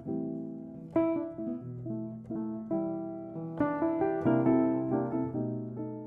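Background music: piano playing notes and chords that ring and fade.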